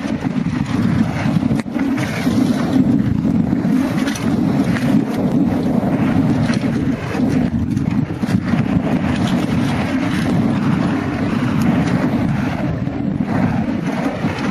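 Heavy wind buffeting on the microphone of a camera riding a downhill mountain bike, with the bike rattling and knocking over rough trail throughout.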